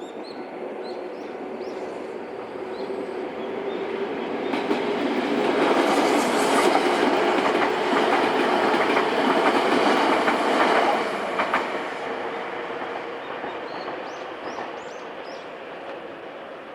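A Nankai Kōya Line electric train passing over a level crossing: its running sound builds over a few seconds, peaks in the middle with a rapid clatter of wheels over rail joints, then fades away.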